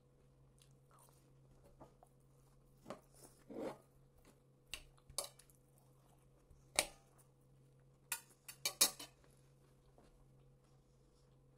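Fork clinking and scraping against a plate while eating: scattered separate clicks and short scrapes, with a quick cluster of louder clinks near the end.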